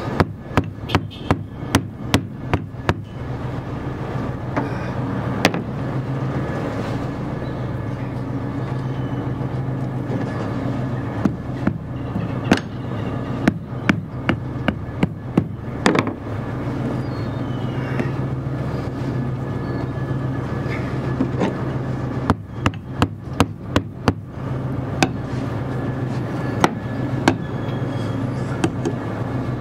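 Hammer blows knocking ice out of a frozen-solid nylon mooring rope on a boat's deck cleat: sharp knocks in quick runs of several strikes, with pauses between. A steady low hum runs underneath.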